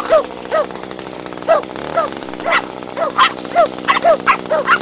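Puppies yapping in quick short barks, about three a second with a brief pause about a second in, over the steady running of a string trimmer.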